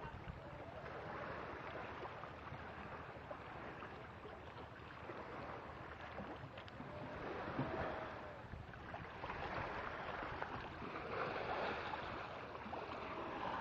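Steady rushing noise of wind and water, swelling a little about eight seconds in and again a few seconds later.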